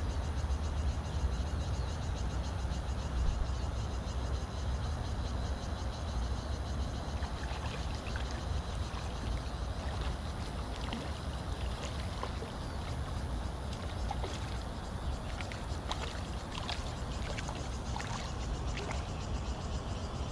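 Steady low wind rumble on the microphone. From about seven seconds in come small water splashes and taps from a hooked fish struggling at the surface as it is drawn in to the bank.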